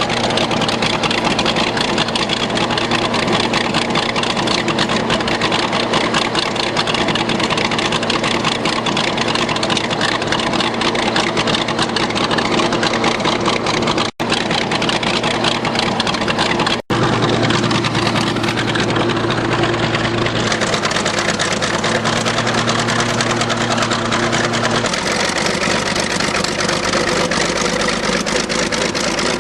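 Old diesel bulldozer engine running steadily in the cold, its speed shifting a few times in the second half.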